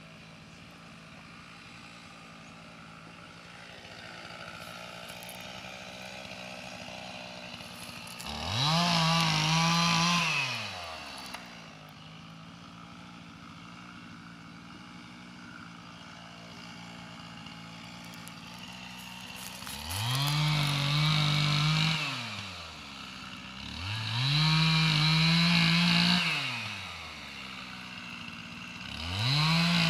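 Chainsaw engine idling and being revved up to full speed four times, each time held for about two seconds before dropping back to idle; the last rev-up comes near the end.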